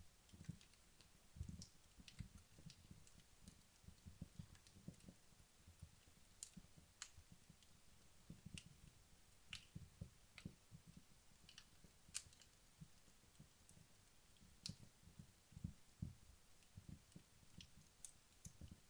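Wood fire burning low in a fireplace, crackling faintly with sparse, irregular sharp pops and soft low thuds.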